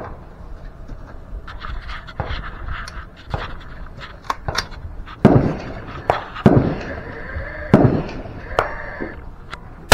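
Rifle shots from the prone shooter: three loud shots in the second half, about a second and a quarter apart, each with a short echo, and another right at the end. Fainter cracks and ticks are scattered through the first half.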